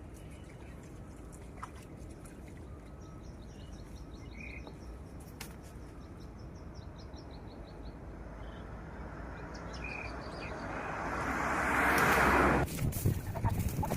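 A bird trills a fast run of repeated high chirps over steady outdoor background noise. Later a rushing noise grows over several seconds, is loudest near the end and stops abruptly, followed by a few clicks.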